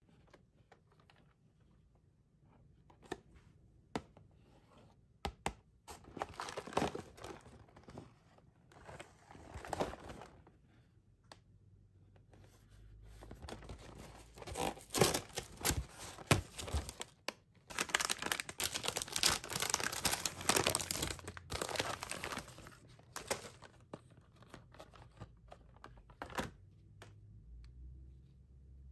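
A cardboard cookie box being handled and opened by hand. A few light clicks and taps come first, then bursts of packaging tearing and crinkling, quieter near the end.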